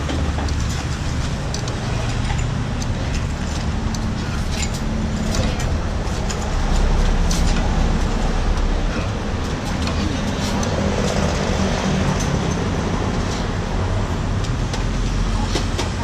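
Steady road traffic noise from passing vehicles, swelling a little about seven seconds in, with scattered light clinks of a spoon and chopsticks against a noodle bowl.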